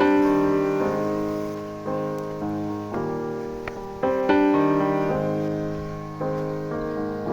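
Background music of gentle piano chords, each struck and left to fade, about one a second.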